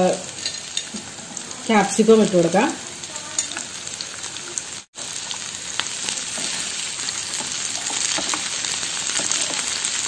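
Chopped onion and green capsicum frying in hot oil in a nonstick pan, sizzling as they are stirred with a wooden spatula. The sizzle cuts out for an instant about halfway, then runs steadier and a little louder.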